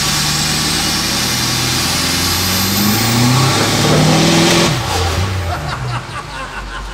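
Flatbed truck's engine revved hard in a power stall, held in gear against the brakes, its pitch climbing steadily for several seconds. About two-thirds of the way through it drops off sharply back toward idle.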